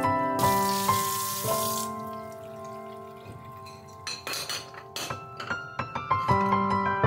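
Instrumental background music with held notes, over a kitchen tap running for the first two seconds. From about four seconds in, a series of sharp clinks as ceramic bowls and dishes are set down on the rack.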